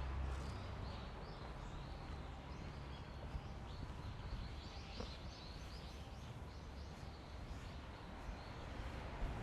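Small birds chirping in quick, repeated short notes over a low rumble of wind on the microphone that is strongest at the start.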